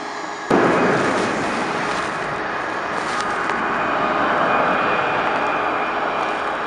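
Jet airliner engine noise, a loud steady rush with a faint whine, starting abruptly about half a second in.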